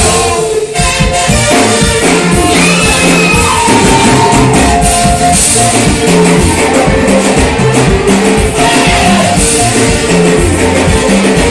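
Worship band playing with drum kit and guitar, and a singing voice over the music.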